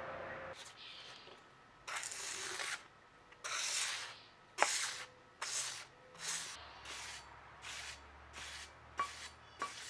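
A sheet of abrasive paper rubbed by hand over an etched Damascus steel axe head to polish it. It starts with two longer rasping strokes about two seconds in, then goes on in quicker short strokes at about one and a half to two a second, with a few sharp ticks.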